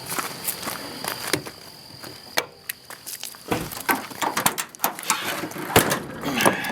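Hands handling a power window switch and its surroundings: irregular clicks, taps and rustling of small hard plastic parts, with a faint steady high whine over the first half.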